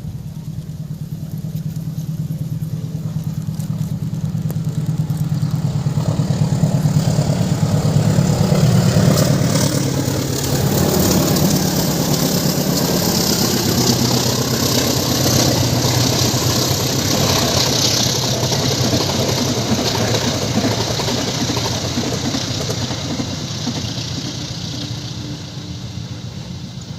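A diesel-hauled passenger train passing at speed: the locomotive's engine drone builds to a peak and drops in pitch as it goes by about ten seconds in, followed by a long run of wheels hissing and clattering on the rails that slowly fades.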